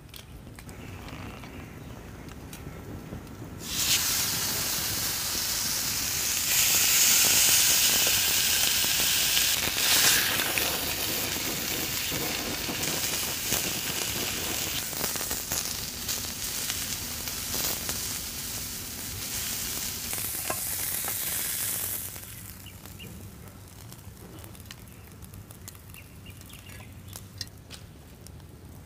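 Beef steak searing in a hot iron skillet over a wood fire: a loud, steady sizzle that starts suddenly about four seconds in, is strongest for a few seconds soon after, and stops abruptly a little after twenty seconds, leaving a quieter stretch of faint clicks.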